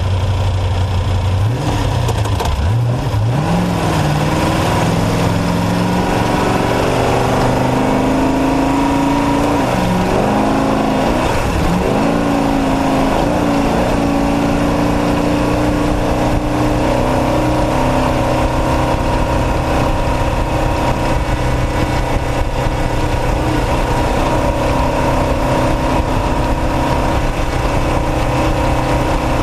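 Off-road race truck's engine idling, then revving up about two seconds in and pulling away. Its pitch rises and drops several times before settling into a steady run.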